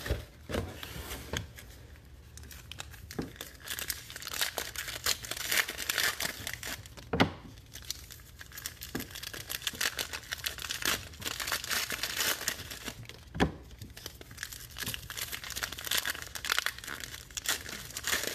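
Foil trading-card pack wrappers being torn open and crinkled by hand, with a few sharp knocks in between.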